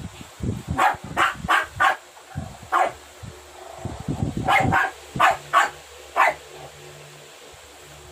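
A dog barking in short, separate barks, about ten of them in a few quick clusters, stopping about two-thirds of the way through.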